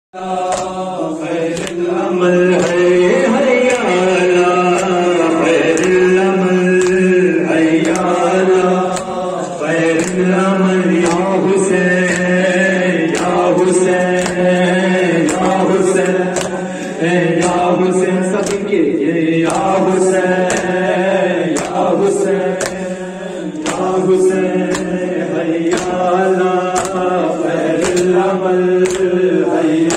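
Urdu noha, a Muharram lament, chanted by a male reciter through a microphone in long held melodic lines. A group of mourners beat their chests (matam) in a steady rhythm of sharp slaps, somewhat faster than once a second.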